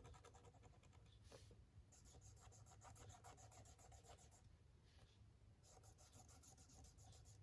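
Faint, intermittent scratching and rubbing on paper as ink is swatched onto a card.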